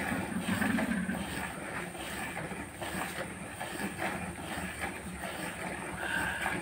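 Milk squirting by hand from a cow's teats into frothy milk in a plastic bucket, in a steady run of squirts.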